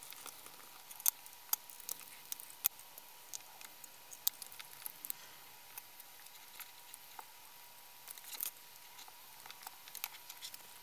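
Sparse small clicks and taps of a precision screwdriver and hard plastic housing parts being handled as a small Phillips screw is taken out and the circuit board is lifted from a clamp-on current probe. A faint steady high tone runs underneath.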